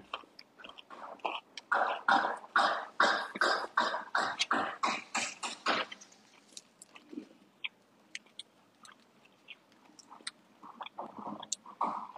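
A person chewing a sandwich close to the microphone: a run of even, rhythmic chews about three a second from about two seconds in to about six seconds in, then scattered small mouth clicks and a few softer chews.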